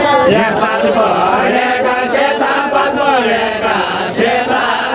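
A group of voices singing a Nepali Deuda folk song together in a chant-like melody, several voices overlapping.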